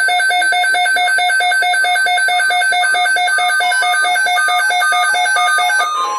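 Electronic emergency-alert alarm from a weather alert receiver, beeping rapidly at several beeps a second. A second beeping pattern at different pitches joins about halfway through. It signals that an incoming weather alert, here a flood watch, is being received.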